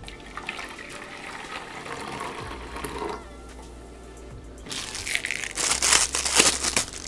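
Hot water poured from a metal cup into a metal canteen cup onto freeze-dried coffee, trickling and filling for about three seconds. About five seconds in comes loud crinkling as the plastic wrapper of a spoon is torn open and handled.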